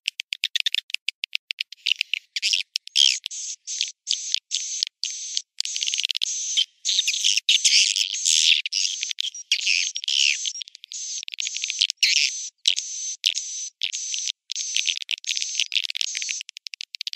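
Recorded swiftlet calls played as a lure for a swiftlet house: a fast run of even clicks that thins out over the first couple of seconds, then dense high twittering and chirping in short bursts broken by abrupt silent gaps.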